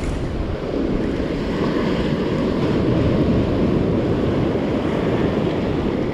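Surf washing in around the feet and wind buffeting the microphone: a steady rushing noise.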